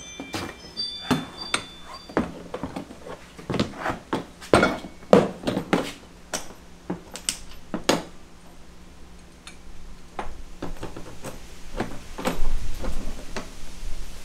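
Hollow knocks and clatters of a plastic (poly) dump cart bed being handled and laid down on a concrete floor. There is a run of separate knocks, loudest about four to six seconds in, then lighter handling noises near the end.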